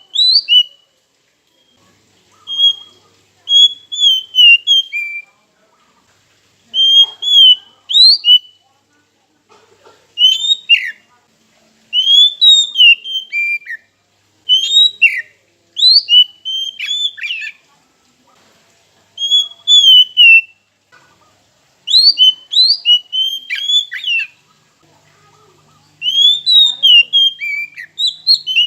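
Oriental magpie-robin (kacer) singing loud whistled phrases with quick rising and falling glides. The song comes in bursts of one to two seconds separated by short pauses, about eleven bursts in all.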